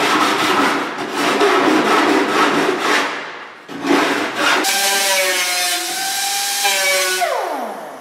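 Hand file rasping back and forth along the cut edge of a steel car door skin, deburring it, in rapid strokes that pause briefly about three seconds in. From about five seconds in, a loud wavering screech with several pitches takes over and slides down in pitch near the end.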